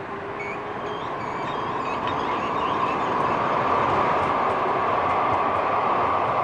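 Calgary C-Train Siemens-Duewag U2 light rail vehicles rolling past close by, the noise of wheels on rails and running gear growing louder as the cars draw level.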